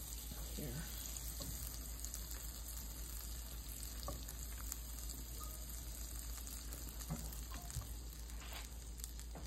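Butter sizzling in a pan on the stove as it melts: a steady, low hiss with a few faint clicks.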